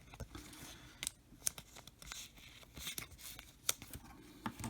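Trading cards being flipped through by hand: faint sliding and rustling of card against card, with several sharper ticks.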